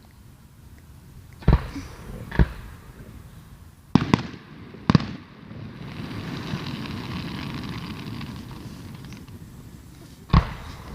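Fireworks shells bursting: five sharp bangs, two in the first couple of seconds, two more around four to five seconds and one near the end, with a drawn-out rumbling crackle between the middle pair and the last.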